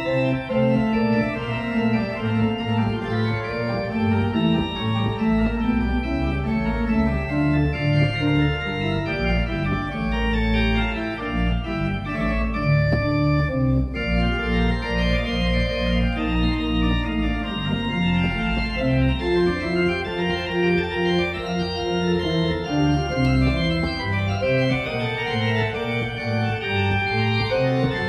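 Pipe organ playing several moving lines at once, with a deep bass that comes in about five seconds in; the music breaks off briefly near the middle, then goes on.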